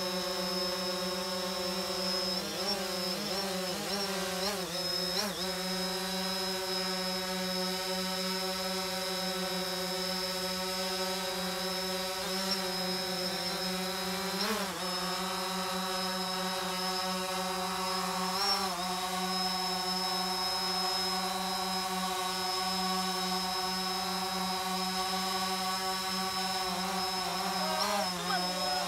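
DJI Phantom 4 Pro quadcopter hovering low, its propellers giving a steady buzzing hum at a fixed pitch. The pitch wobbles briefly a few seconds in, about halfway, and again near the end as the motors change speed.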